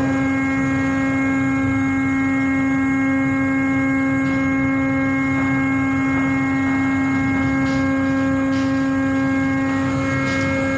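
Steady machinery hum on a ship's mooring deck: one unchanging tone over a low rumble, with a few faint knocks late on.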